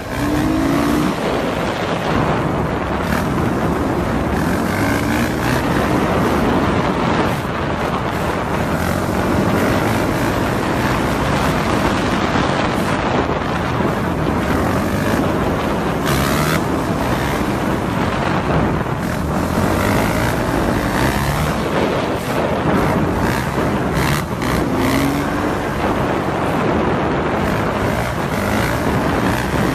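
Heavy wind rushing over the microphone of a moving vehicle, with a dirt bike's engine running underneath as it is held in a long wheelie. The engine note rises briefly a few times.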